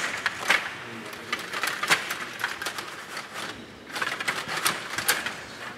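STIGA table hockey game in play: plastic player figures and metal rods clacking against the puck, the boards and each other. It comes as irregular sharp clicks, several clustered close together.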